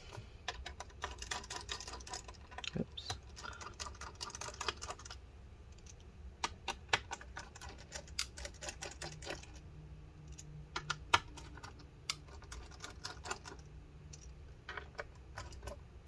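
Pentalobe precision screwdriver backing screws out of a MacBook Pro's aluminium bottom case: clusters of small sharp metal clicks and taps with short pauses between them, the sharpest click about eleven seconds in.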